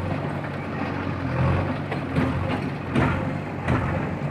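JCB backhoe loader's diesel engine running steadily under load, its bucket pushing into a brick house wall. A few sharp knocks of breaking brickwork come about two and three seconds in.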